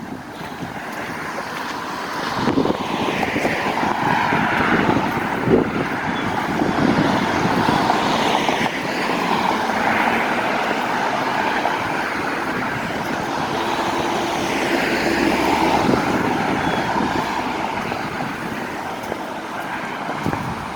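Road traffic noise, swelling and fading as vehicles pass, with wind gusting on the microphone now and then.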